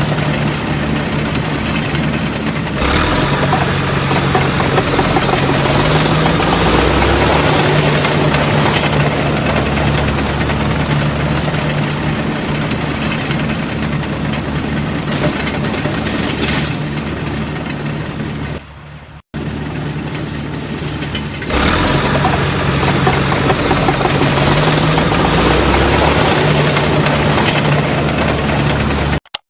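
A small engine running steadily, with a steady low hum. It cuts out abruptly twice about two-thirds of the way through.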